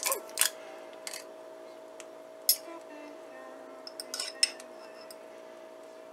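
A metal fork clinking against a glass jar as minced garlic is scooped out of it, in a handful of separate sharp clinks with a cluster near the end, over a faint steady hum.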